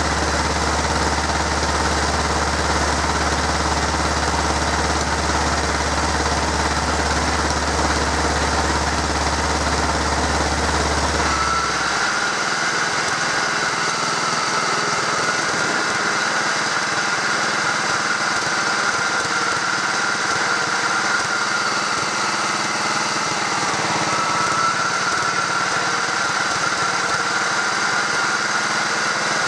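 The engine of a 1968 Stothert and Pitt W28 Mk 1 roller, up on blocks, running steadily. About twelve seconds in, its deep low hum drops away and a higher steady whine takes over, with a brief dip in pitch near the end.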